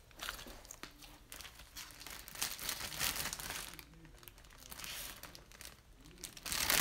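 Blue glitter slime being squeezed and handled by hand, giving sticky crackling and squishing noises in uneven bursts, with the loudest burst near the end.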